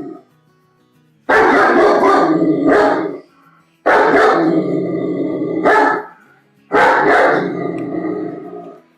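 German Shepherd dog barking loudly in three bouts of about two seconds each, each starting abruptly, with short silent gaps between them.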